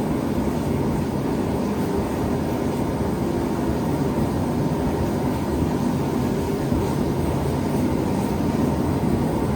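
Gas forge burners running, a constant noise with no breaks while steel heats inside. The burners' fuel-air mix is not yet fine-tuned.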